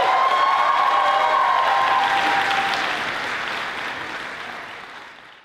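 Audience applauding and cheering at the end of an a cappella song, with a few held whoops in the first couple of seconds; the applause fades out near the end.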